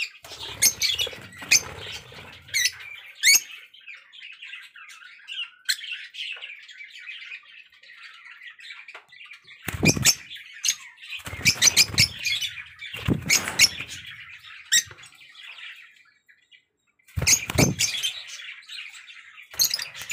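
A flock of African lovebirds chattering continuously with sharp, high-pitched chirps and squawks. A few louder bursts of rustling noise break in about halfway through and again near the end.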